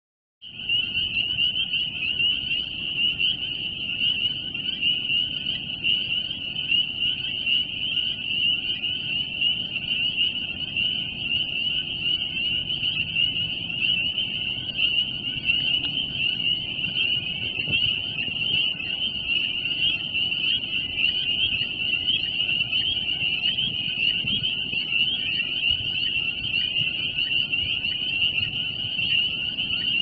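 Dense chorus of insects: a steady, high-pitched buzzing that never lets up, over a low background rumble.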